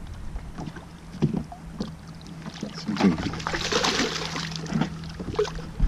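A hooked bass thrashing and splashing at the water's surface beside the boat, loudest about three to four and a half seconds in, over a steady low hum.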